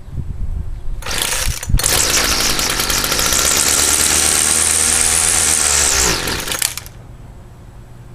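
Gas string trimmer's two-stroke engine catching on a cold start and running at high revs for about six seconds, then dropping suddenly to a low idle near the end. It starts fairly well but not cleanly, which the owner puts down to a carburettor needing a rebuild.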